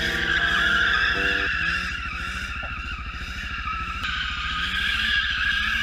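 BMW drift car's tyres squealing steadily through a sustained drift, its engine revs rising and falling as it slides. Background music ends about a second and a half in, and a low steady engine rumble runs underneath.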